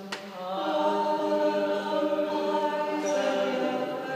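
A small group of women singing a song together in a church, unaccompanied, holding long steady notes; a new sung phrase begins about half a second in.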